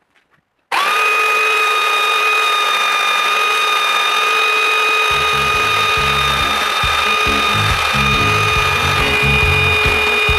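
Belt sander switched on about a second in and running with a steady whine. From about halfway, a small wooden handle piece is pressed against the moving belt, adding an irregular low grinding sound as the wood is sanded.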